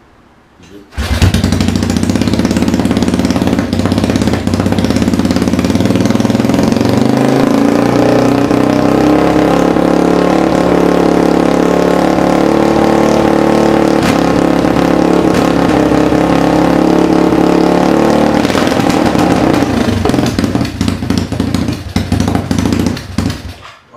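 Yamaha 225DX three-wheeler's single-cylinder four-stroke engine starting about a second in and running, its pitch shifting as the throttle is worked, then faltering and cutting out near the end. The carburettor's air-fuel mixture is not yet tuned.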